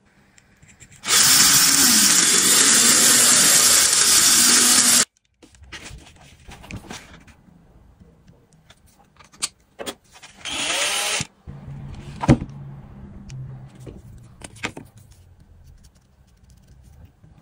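A handheld power tool runs steadily for about four seconds and cuts off sharply, then runs again for under a second about ten seconds in. Between and after come scattered clicks and knocks.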